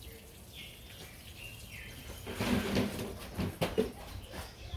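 Birds calling outdoors, with a louder stretch of clatter and a few sharp knocks from about halfway through.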